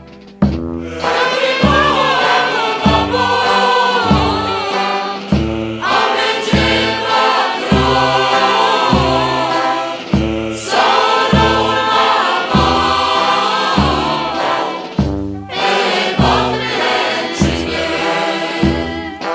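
Background music: a group of voices singing together over a steady, regular beat, starting about half a second in.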